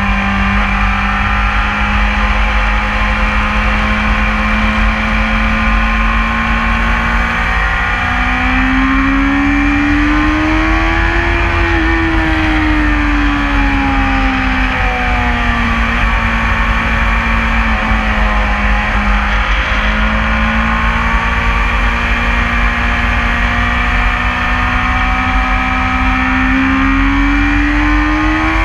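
BMW S1000RR's inline-four engine running under load, heard from the bike itself at track speed, with wind rushing over the microphone. The engine pitch holds steady, rises and falls once around the middle, holds again, then climbs slowly near the end.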